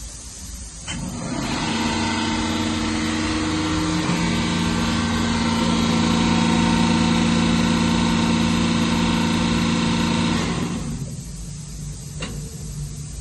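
Futura Metalstar 2000 four-sided moulder running: a steady whine of several pitches over a broad hiss. It comes up about a second in, a further low pitch joins about four seconds in, and it falls away after about ten seconds.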